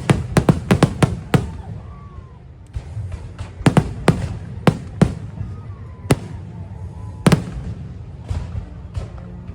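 Fireworks going off in sharp bangs, a rapid volley in the first second and a half, then single bursts spaced a second or so apart, over the show's music soundtrack.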